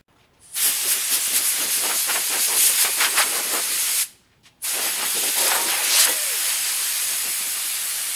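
Water spraying hard from a trigger nozzle on a hose, a steady hiss in two long bursts with a short break about four seconds in.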